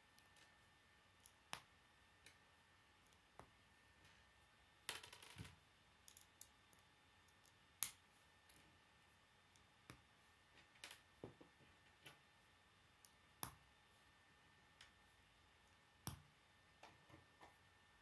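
Short plastic K'nex rods snapped one by one into white K'nex round connectors: sharp plastic clicks at irregular intervals, about one a second, with a brief rattle of pieces about five seconds in.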